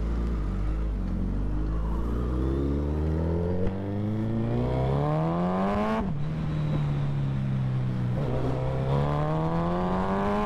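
Suzuki Hayabusa inline-four with a Brocks full exhaust system accelerating under the rider's throttle, its note rising steadily. About six seconds in the pitch drops suddenly at a quickshifter upshift, then climbs again near the end.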